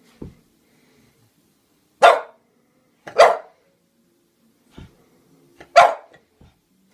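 French bulldog barking three times, short and loud, at a toy clown doll that it is scared of and takes for something alive.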